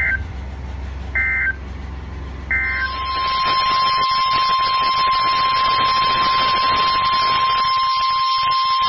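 NOAA Weather Radio test signal: three short data bursts of the EAS/SAME header about a second apart, then the steady 1050 Hz warning alarm tone, heard over loud radio static.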